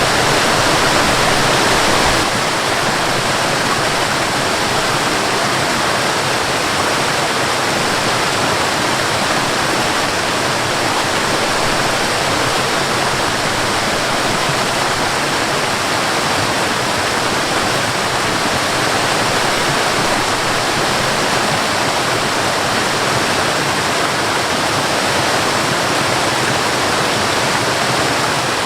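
Waterfall water rushing steadily, a dense even roar of falling and flowing water, a little louder for the first two seconds.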